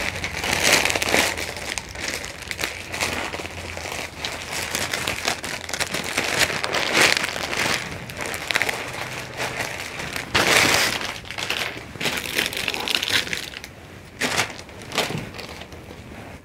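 Clear plastic packaging crinkling and rustling as a packaged suit is handled and unwrapped, in irregular bursts with louder rustles about half a second in, around seven seconds and around ten and a half seconds, quieter near the end.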